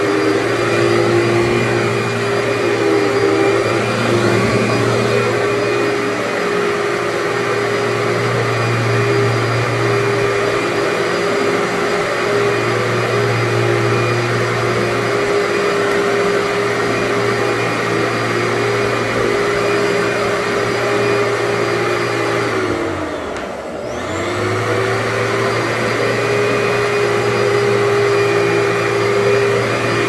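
Commercial upright vacuum cleaner running steadily as it is pushed over carpet, its motor tone briefly winding down and then picking back up about three-quarters of the way through.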